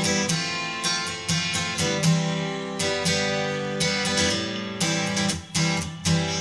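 Background music: acoustic guitar, strummed and plucked chords.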